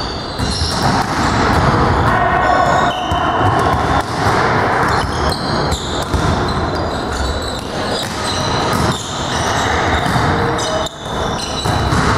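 Indoor volleyball rally in a gym hall: the ball is struck repeatedly, with players calling out, all echoing in the hall.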